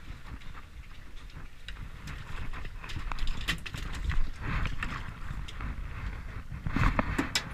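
Irregular knocks and taps on an aluminum boat's deck, scattered in small clusters, over a steady low rumble of wind and water.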